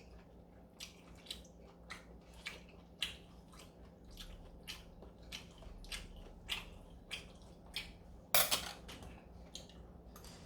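Someone eating galbitang, beef short-rib soup: a string of short chewing clicks, about one or two a second, with one louder, longer noisy sound about eight seconds in.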